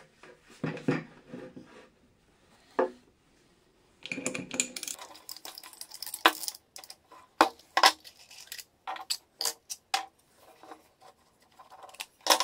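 Irregular clicks and light metallic clinks as an angle grinder is handled by hand, its cutting disc and clamping nut knocked and turned; the grinder's motor is not running.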